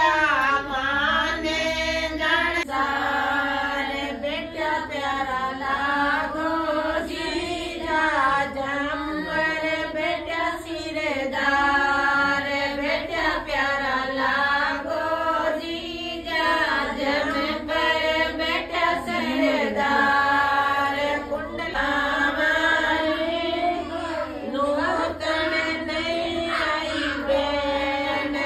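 A group of women singing a Rajasthani folk wedding song (bhat geet) together in a chant-like melody, in continuous phrases.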